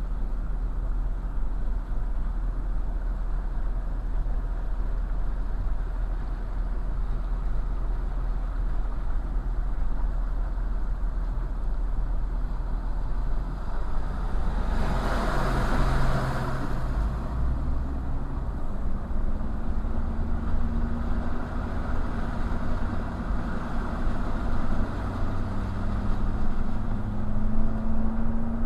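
Motor vehicle sounds over a steady low rumble. About fifteen seconds in comes a loud rushing pass lasting a few seconds, and from about twenty seconds on an engine hum rises slowly in pitch.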